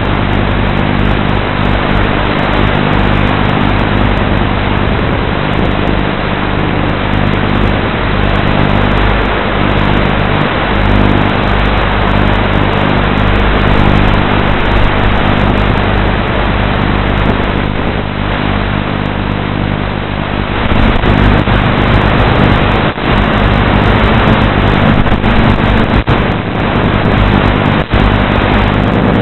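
Electric motors and spinning blades of a 450-size radio-controlled model aircraft, heard through its onboard camera microphone: a steady, loud hum with a rushing noise of air. It grows louder about two-thirds of the way in, and there are a couple of sharp clicks near the end.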